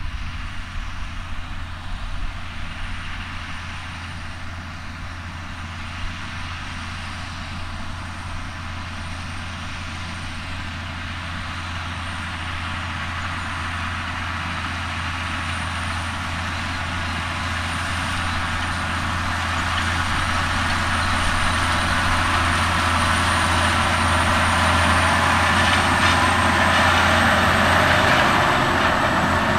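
John Deere 9430 four-wheel-drive tractor's six-cylinder diesel engine working steadily under load while pulling a seeder. It grows gradually louder as the tractor approaches, and is loudest as it passes close by near the end.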